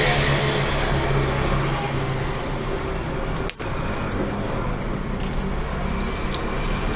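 Steady background noise, like distant road traffic, with a low steady hum under it; it cuts out for a moment about three and a half seconds in.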